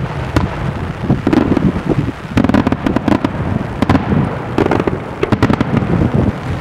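Daytime aerial fireworks shells bursting overhead: many rapid, overlapping bangs and crackles over a continuous low rumble, coming in dense volleys that are heaviest in the middle and second half.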